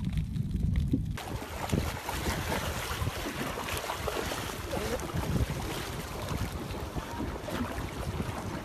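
Muffled low rumble of a microphone under water; about a second in it gives way suddenly to close splashing and churning water with wind noise on the microphone, from a swimmer kicking at the surface.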